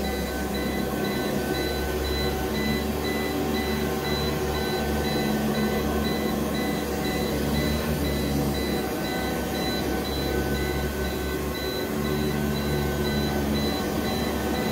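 Hoover U4007 upright vacuum cleaner running steadily while it is pushed over carpet, powered from an APC battery backup's battery.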